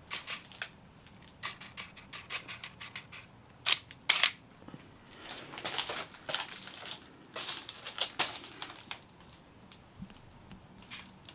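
Nikon film SLR being handled and fired: a scatter of small mechanical clicks and handling noise, with two sharp, loud shutter clicks about four seconds in.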